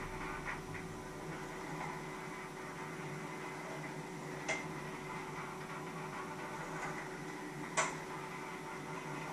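Cooking at a stovetop: two sharp clinks of a utensil against a metal pot, about three seconds apart, over a steady kitchen hum.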